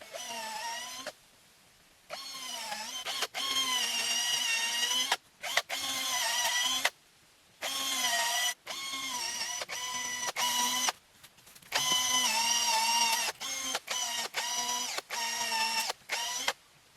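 A small electric motor whining in repeated runs of one to three seconds, switched on and off abruptly, its pitch sagging and recovering during each run.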